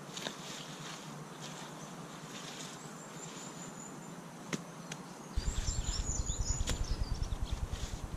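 Outdoor bush ambience with high bird chirps and a couple of sharp knocks; about five seconds in, a pulsing low rumble of wind buffeting the microphone starts.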